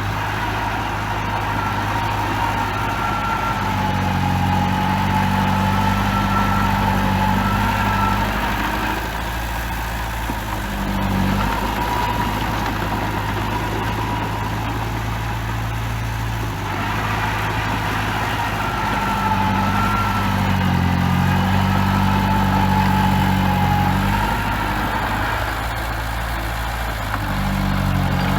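Bulldozer's diesel engine running, its pitch rising twice as it is worked harder, with a wavering whine above it.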